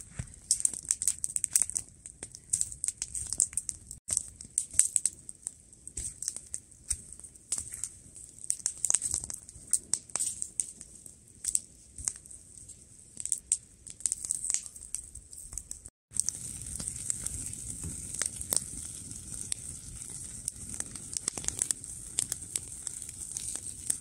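Wood campfire crackling, with many irregular sharp pops and snaps. About two-thirds of the way in, after a brief break, a steadier hiss with scattered crackles takes over as steaks sizzle on a wire grill over the flames.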